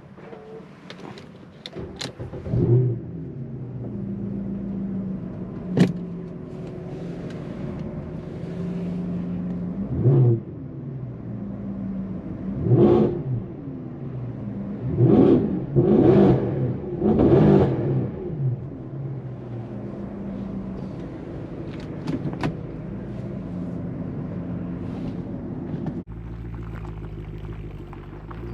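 A Mercedes C63 AMG's naturally aspirated 6.2-litre M156 V8 pulls away and is driven hard. Its revs climb and drop again several times, with a cluster of hard acceleration bursts a little past the middle, between steadier cruising stretches. A few sharp clicks stand out.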